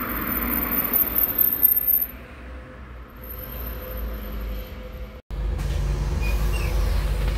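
A car passes close by with tyre and engine noise over the first two seconds, leaving quieter road noise. After a sudden cut, a steady low engine rumble fills the cabin of a Scania N280UD CNG double-decker bus.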